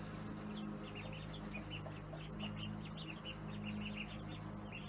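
Baby poultry peeping: many short, high chirps in quick succession, over a steady low hum.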